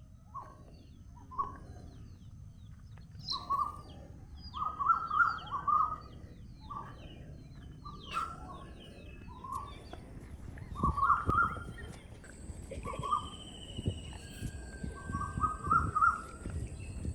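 Wild birds calling: one bird gives repeated bursts of quick, pitch-bending notes, several times over, among scattered higher chirps from other birds.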